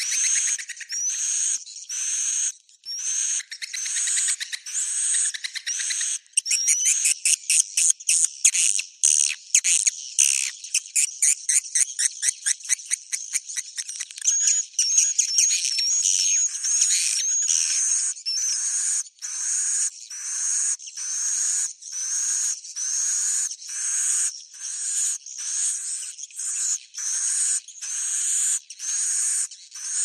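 Swiftlet roosting-call lure recording ('suara inap') of edible-nest swiftlet calls, used to keep swiftlets settled in a swiftlet house. It has high twittering calls repeating about once a second, with a fast run of short chirps and trills in the middle.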